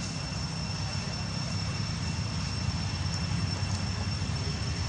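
Steady low mechanical drone, like a motor running, with a thin steady high whine over it.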